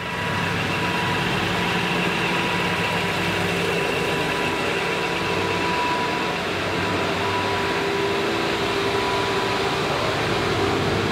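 Concrete Genie floor grinder running steadily as it grinds a concrete floor right up to the wall edge, a continuous machine drone with a few held tones.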